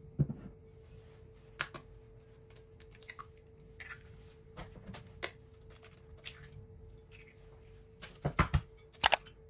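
Eggs being cracked into a glass mixing bowl: sharp clicks and cracks of eggshell spread through, with a knock of the glass bowl set down on the counter at the start. A quick run of loud cracks comes near the end.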